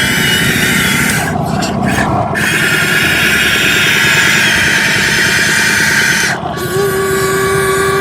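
Electric motors of a radio-controlled excavator or dump truck whining steadily under load. The high whine cuts out briefly twice, around a second and a half in and again after six seconds, and a steadier lower tone sets in near the end.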